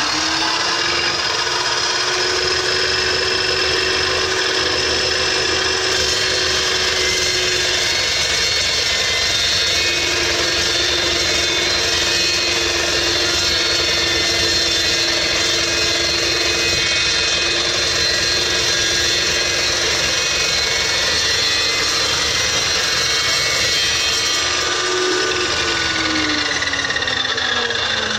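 Evolution carbide-tipped dry-cut metal chop saw running at speed and slowly cutting through steel on a 45-degree angle, a steady motor whine over a dense cutting hiss. Near the end the motor is released and winds down with a falling pitch.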